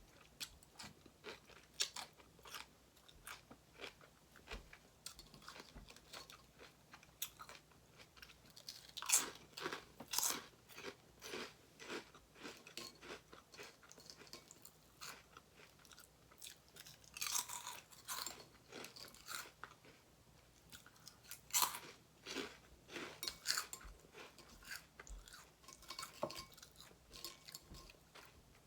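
A person chewing and crunching crisp food close to the microphone, with repeated crackling bites in clusters.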